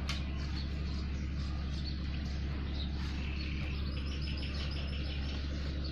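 Short, high, bird-like chirps several times, including a quick run of chirps about four seconds in, over a steady low hum.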